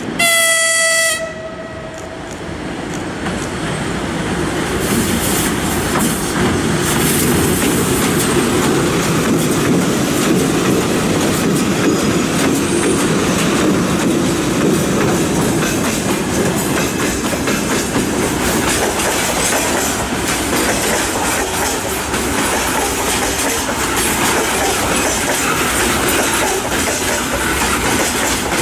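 A VL11M electric locomotive sounds one short horn blast, about a second and a half long. The locomotive then runs past hauling a freight train of open gondola wagons, and the wagons' wheels clatter steadily over the rail joints.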